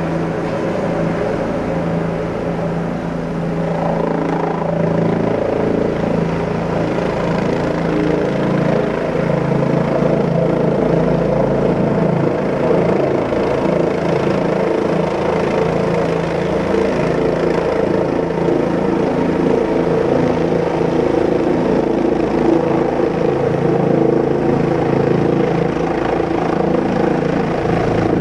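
Helicopter in flight, its engine and rotor giving a steady drone that swells slightly a few seconds in and then holds.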